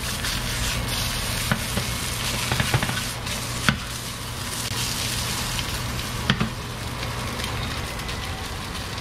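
Chunks of fish frying in hot olive oil in a small nonstick pan: steady sizzling, with a few sharp clicks scattered through it.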